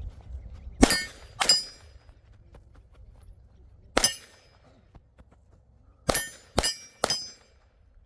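Six 9mm pistol shots from a Glock 45, fired as two, then one, then three quick shots, each followed by a bright metallic ring as the bullets strike steel targets.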